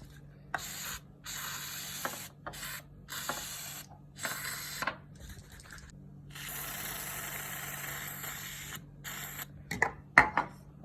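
Aerosol can of Q20 lubricant spray hissing in a series of short sprays, then one long spray of about two and a half seconds, with a few sharp clicks near the end.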